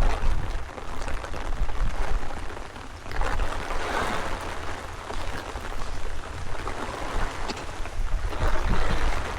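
Rain falling, with strong wind buffeting the microphone as a low rumble. The wet hiss swells twice, about three seconds in and again near the end.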